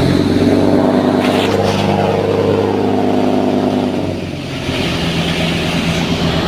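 Wooden boat's engine running steadily; about four seconds in it changes note and briefly drops in level, then settles at a new steady pitch.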